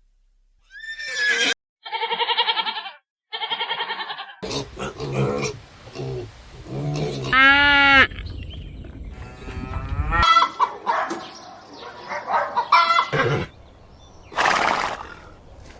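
Farm livestock calling in a string of short clips cut together: two wavering, pitched calls in the first few seconds, then more calls of other kinds over a low background rumble, with a short noisy blast near the end.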